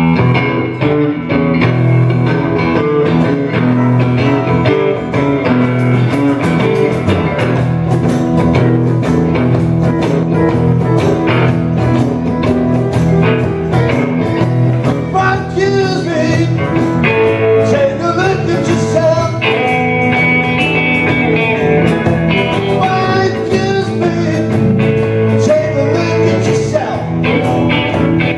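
Small live band playing on electric and acoustic guitars with keyboard, amplified through the room's PA.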